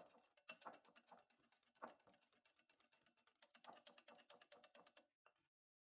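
Wire whisk beating a thick yogurt, mayonnaise and sugar paste in a glass bowl: rapid ticking of the wires against the glass, stopping about five seconds in.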